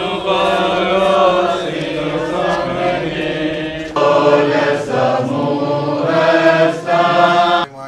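Voices chanting a church hymn together in long held notes, with an abrupt cut about four seconds in to another stretch of chanting.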